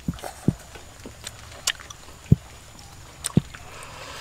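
Eating and drinking sounds: a few soft low thuds and sharp mouth clicks, then a faint slurp near the end as soup is sipped from a bowl.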